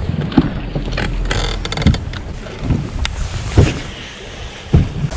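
Small waves slapping against a bass boat's hull in a few low, irregular thumps, with wind buffeting the microphone. A brief quick rattle of fine clicks sounds a little over a second in.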